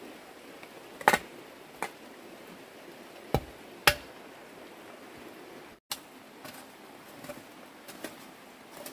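A hoe blade striking and scraping wet earth: four sharp strikes in the first four seconds, then lighter, softer strokes through soil and dead leaves.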